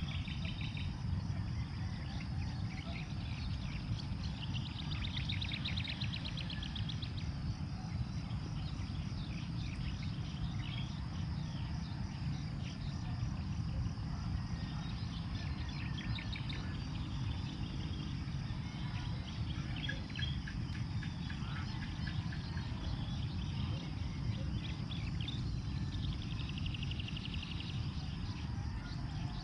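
Open-field ambience: a steady low rumble with insects buzzing and birds chirping. A rapid trilled call comes a few seconds in and again near the end.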